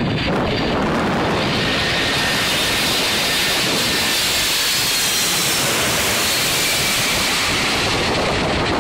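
Boeing 747-400's four turbofan engines on final approach, passing low overhead: a loud, steady jet rumble. A hiss builds about a second and a half in and eases near the end, with faint high whines above it.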